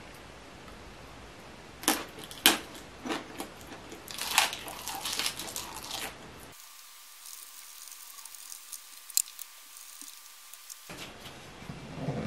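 Close-up eating sounds: a couple of sharp chopstick clicks, then crunchy chewing of a fresh napa cabbage leaf wrapped around stir-fried pork. Partway through, the sound drops much quieter with only a few light ticks, and a knock comes at the very end.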